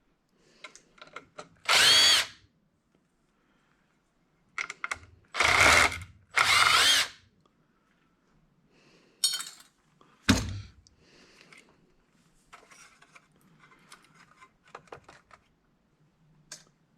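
Power drill-driver running in three short bursts, its motor whine rising and falling as it spins screws out. About ten seconds in comes a sharp knock, followed by light clicks and rattles of parts being handled.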